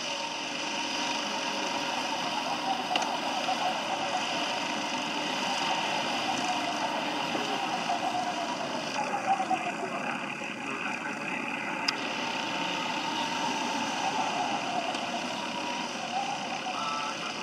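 Racing karts' engines running as they circle the track some way off, a buzzing drone whose pitch wavers up and down as they speed up and slow for the corners.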